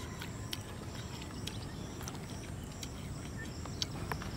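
Faint, scattered clicks and crunches of people picking raw guava pieces off a plastic cutting board by hand and chewing them, over a steady background hiss.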